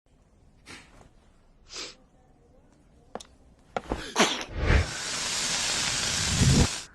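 Cartoon sneeze sound effect: two short sniffs, a quick build-up about four seconds in, then a long, loud sneeze blast of about two seconds that cuts off suddenly.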